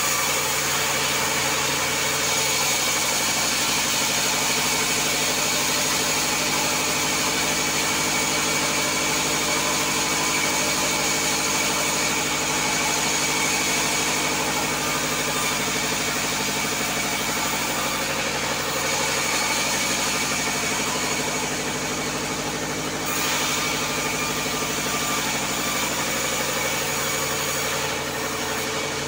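Bandsaw mill running steadily, its drive giving a constant engine-like drone, with the hiss of the blade cutting through wooden boards as they are fed through. The cutting noise thins out for a few seconds and comes back sharply about 23 seconds in.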